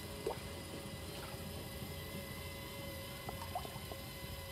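Small boat at sea: a steady low rumble of water and hull with a faint steady hum, and a few light clicks about a third of a second in and again a little past three seconds.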